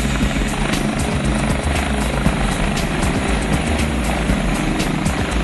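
Medical helicopter running steadily on the ground, its engine and turning rotor making a constant, unchanging noise.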